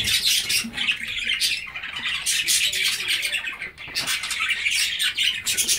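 Many budgerigars chattering together: a continuous, dense run of short, high chirps overlapping one another.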